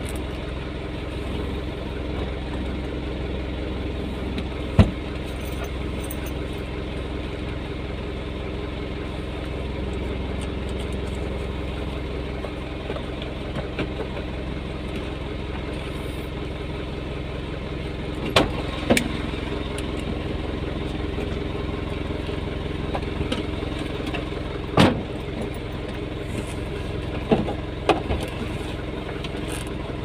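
Vehicle engine idling steadily, heard from inside the cab, with a few sharp knocks scattered through; the loudest comes about five seconds in and another near twenty-five seconds.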